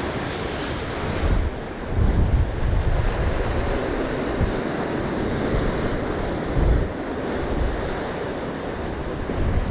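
Sea surf breaking and washing against rocks below. Wind buffets the microphone in gusts, loudest about one to three seconds in and again near the middle.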